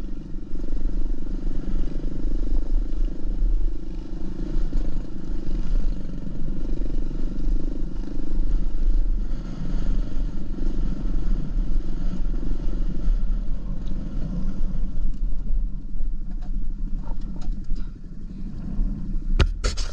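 Dirt bike engine running steadily at low speed, heard from on board while riding a rough dirt track, with a low rumble throughout. A few sharp clicks come near the end.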